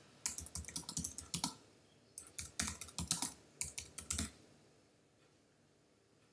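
Typing on a computer keyboard: two quick runs of key clicks with a short pause between them, stopping a little over four seconds in.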